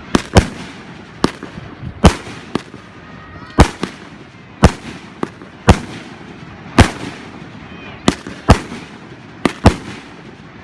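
Fireworks going off in a rapid, irregular run of sharp bangs, about fourteen in ten seconds, each with a short echoing tail.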